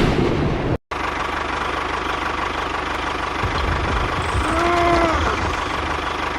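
Engine running steadily with an even low chug. The sound cuts out for a moment just under a second in.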